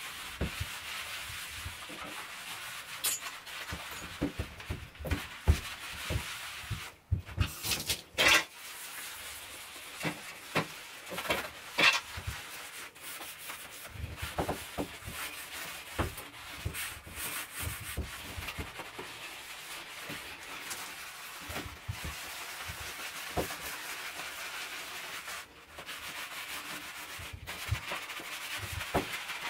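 Sponge scrubbing glazed ceramic wall tiles in a shower, rubbing in an anti-limescale cleaner against ten-year-old limescale. The rubbing is continuous, with many scattered sharp knocks and clicks.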